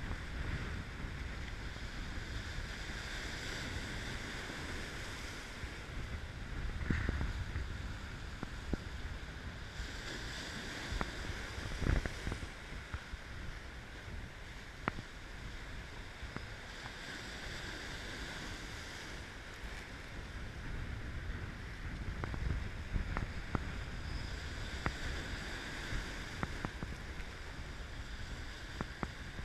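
Lake Superior breakers washing over shoreline rocks, the surf swelling and easing every few seconds with sharp splashes, and wind rumbling on the microphone.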